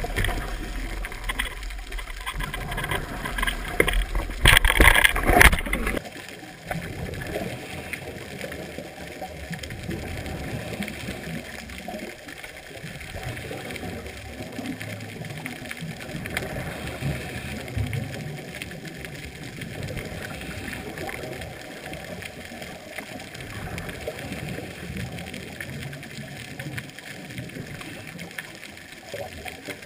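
Underwater sound heard through a GoPro's waterproof housing: loud knocks and rough rumbling for about the first six seconds, then a steady, muffled water murmur with irregular low bubbling.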